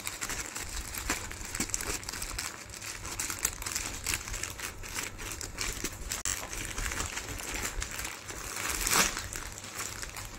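Plastic packaging crinkling and rustling as a courier mailer bag is opened and plastic-wrapped clothing packs are pulled out and handled, with a louder rustle about nine seconds in.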